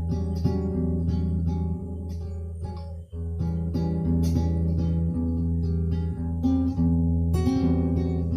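Guitar music: plucked acoustic guitar notes over sustained low bass notes.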